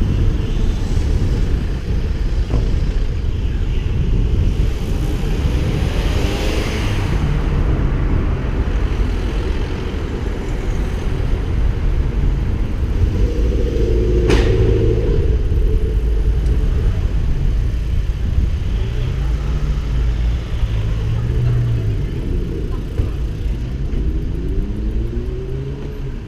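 Motor vehicle driving along a street, recorded from the vehicle carrying the camera: a steady heavy rumble of engine and road noise, with the engine note rising and falling as it speeds up and slows. There is a sharp click about fourteen seconds in, and the engine note climbs near the end.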